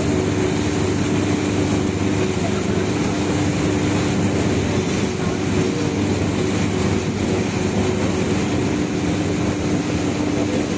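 Boat engine running steadily at cruising speed, an even drone with a low hum and a couple of held tones, over the rushing hiss of churning water in its wake.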